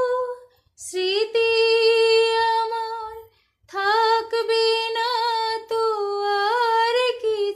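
A woman singing a Bengali song unaccompanied, in two phrases of long held notes with a short break between them.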